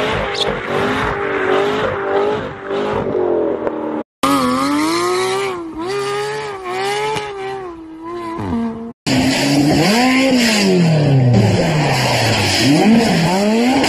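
Supercar engines revving up and down in three short clips, the pitch swinging repeatedly and in one clip sweeping down and back up. The clips are cut apart by two brief silences, about four and nine seconds in.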